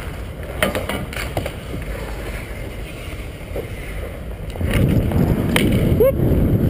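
Ice-hockey skate blades gliding and scraping on rink ice, heard from a camera on the skater, with a few sharp clicks and knocks. Wind on the microphone grows louder about two-thirds of the way in.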